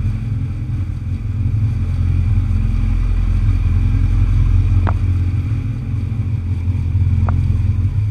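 Kawasaki Z1000 inline-four engine running steadily at low revs as the motorcycle rolls slowly, with two short clicks, one about five seconds in and one near the end.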